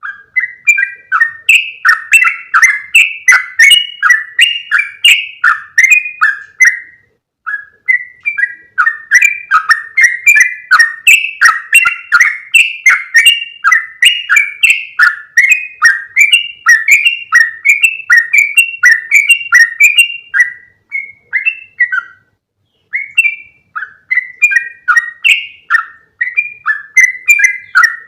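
Yellow-vented bulbul (trucukan) song played as a lure call: rapid, loud chattering phrases of quick notes, repeating almost without pause, with short breaks about seven seconds and twenty-two seconds in.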